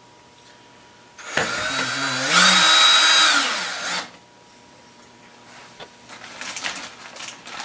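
Power drill driving a screw into a small wooden platform: the motor starts about a second in, speeds up, then slows and stops about four seconds in. A run of clicks and rattles follows near the end.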